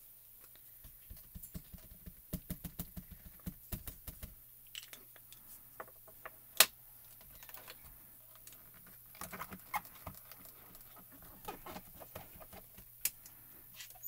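Light rapid tapping and small plastic clicks of a dye ink pad being dabbed onto a clear photopolymer stamp, then one sharp click about six and a half seconds in as the stamp positioner's hinged lid comes down, followed by scattered taps and clicks.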